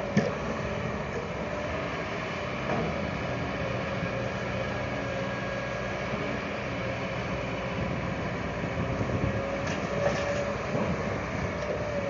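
Heavy diesel engine running steadily, with a constant whine over the engine noise and a short knock just after the start.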